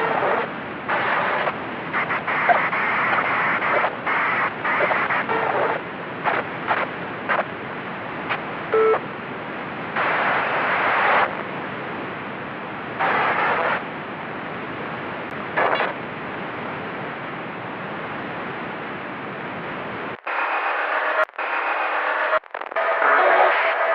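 Radio static: a steady hiss with louder bursts of noise cutting in and out, often in the first eight seconds and only now and then after. About twenty seconds in, the sound turns thin, with a couple of brief dropouts, and a faint pitched tone begins near the end.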